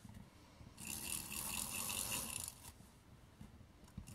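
Adhesive tape runner being drawn along a paper strip: about a second in, its spool runs with a quick, even clicking rattle for nearly two seconds as it lays down adhesive.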